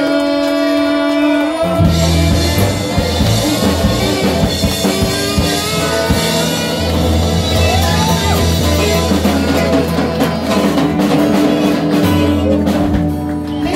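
Live rock band playing: electric and acoustic guitars, saxophone, drums and a woman singing. It opens on a held note; about two seconds in the bass and drums come in and the full band plays on.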